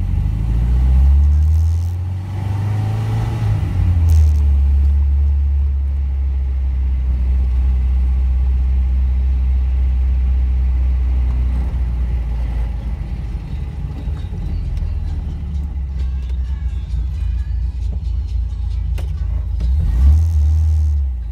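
1968 MGB GT's 1.8-litre four-cylinder engine heard from inside the car while driving slowly, a steady low drone. The revs rise and fall in the first few seconds.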